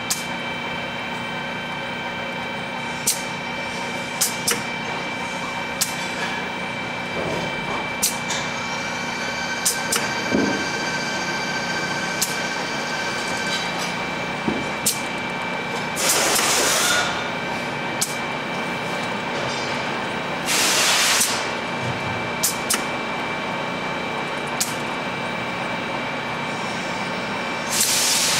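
CNC benchtop coax bender at work bending semi-rigid coax: a steady machine hum with several constant whining tones, sharp clicks every second or two as it moves and clamps, and three short hissing bursts, two in the middle and one at the end.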